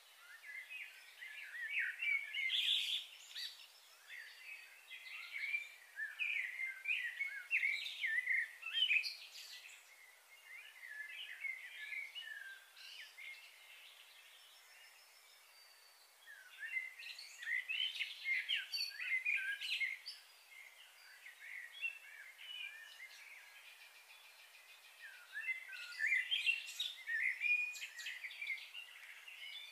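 Small songbirds chirping in quick runs of short, high notes, coming in three bouts with quieter spells between.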